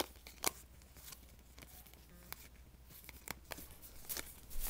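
Trading cards being handled and flipped through by hand: a few sharp clicks and light rustles of card stock, the loudest about half a second in.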